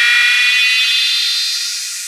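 Siren-like electronic riser in a DJ track: a many-toned synth sweep with a hiss above it, slowly climbing in pitch and easing off a little near the end.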